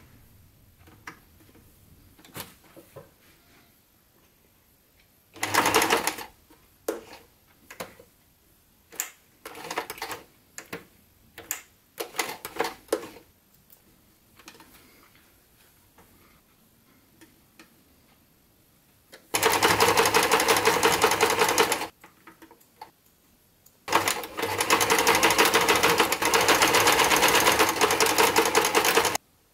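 Electric domestic sewing machine stitching. It sews in a series of short bursts, then two longer runs of steady rapid stitching, the second the longest and stopping just before the end.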